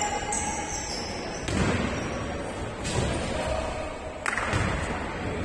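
Basketball bouncing on the court during a game: three loud thuds, about a second and a half apart, over steady background noise.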